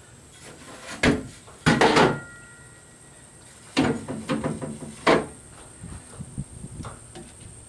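Knocks and clunks of plywood stringers and bulkheads being shifted during a test fit, with a long metal level being set down across them. There are separate hits about a second in, a heavier clatter near two seconds that rings briefly, a rattling run of smaller knocks around four seconds, and a last clunk about five seconds in.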